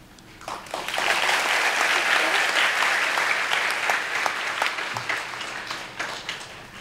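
Audience applauding: clapping starts about half a second in, builds quickly, then fades out near the end.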